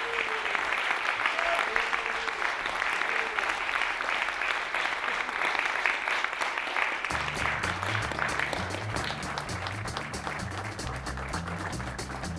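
Audience applauding after a live jazz set, the clapping dense at first and thinning out after about eight seconds. About seven seconds in, music with a low bass line comes in underneath and carries on as the applause fades.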